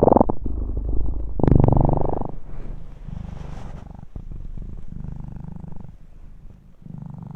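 Domestic cat purring loudly, a rumbling pulse that swells with each breath: two strong surges near the start, then softer, quieter cycles.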